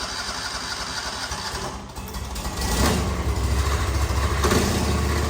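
The 27 hp Kawasaki propane engine of a three-head floor grinder running just after start-up on a little throttle. About two and a half seconds in it gets louder and deeper and runs on steadily.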